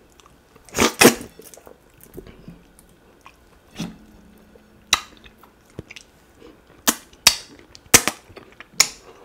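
Close-miked wet eating sounds: a string of sharp, irregularly spaced lip smacks and mouth clicks as mouthfuls of oatmeal fufu dipped in stringy ogbono soup are eaten.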